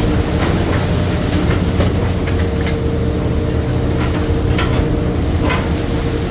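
A fishing vessel's engine and deck machinery run with a loud, steady drone and a faint steady hum, while scattered light knocks and clicks from work on deck sound over it.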